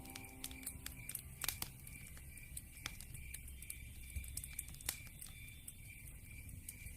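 Wood fire in a fireplace crackling, with irregular sharp pops; the loudest come about one and a half and five seconds in.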